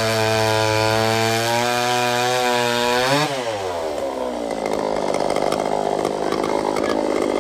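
66 cc Pioneer P41 two-stroke chainsaw, its muffler baffle removed, cutting through a log at full throttle. The engine's pitch climbs as the chain finishes the cut, then drops sharply about three seconds in as the saw comes free and falls back to a rough idle.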